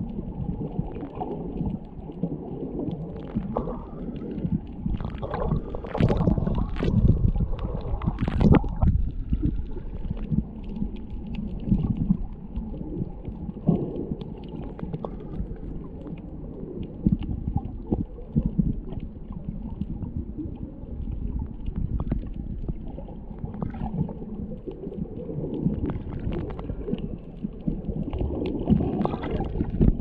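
Muffled underwater sound picked up by a submerged camera: a steady low rumble and gurgle of moving water, with scattered sharp clicks and crackles that crowd together from about 5 to 9 seconds in.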